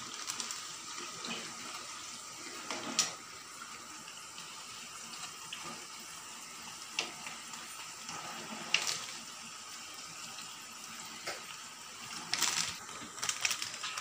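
Vadas (garelu) deep-frying in hot oil in an iron kadai: a steady sizzle of bubbling oil, with a few sharp clicks of a spatula and tongs against the pan, clustered near the end.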